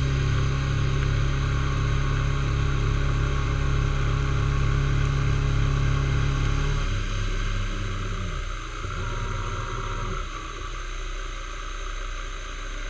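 Milling machine running with its end mill cutting an aluminium block: a steady motor drone with a regular pulse about four times a second. About seven seconds in the drone drops and shifts, with a brief change in pitch.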